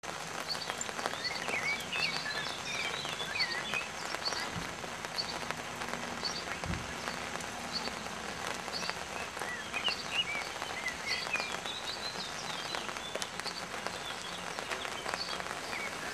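Steady hiss of falling rain, with birds chirping and singing in many short, twisting phrases over it.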